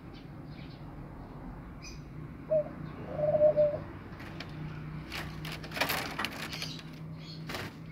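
A bird's low cooing call: a short note, then a longer wavering one. Rustling noise follows, over a faint steady low hum.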